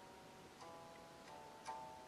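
Soft background music of slow, single plucked-string notes, each ringing out and fading. Three notes, the last and clearest a little before the end.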